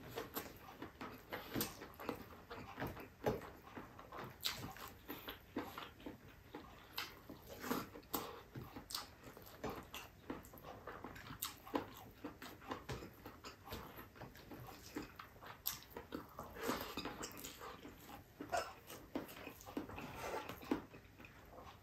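Close-up eating sounds of a man eating rice and octopus by hand: faint, irregular chewing, lip-smacking and sucking clicks.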